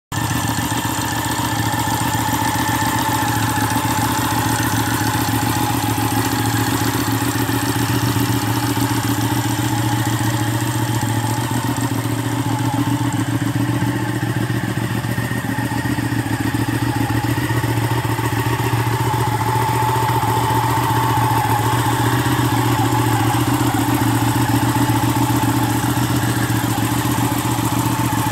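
2017 Ducati superbike's L-twin engine idling steadily.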